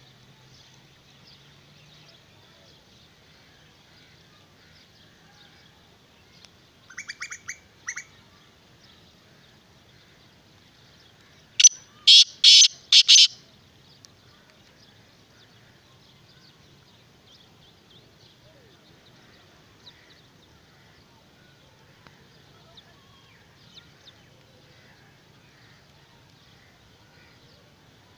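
Male black francolin calling: a softer run of short notes about seven seconds in, then a loud, harsh call of four notes in quick succession a little before the middle.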